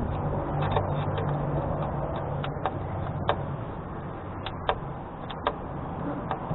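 Screwdriver tightening a metal clamp around a car's exhaust pipe, the clamp screw giving sharp, irregular clicks over a low steady hum.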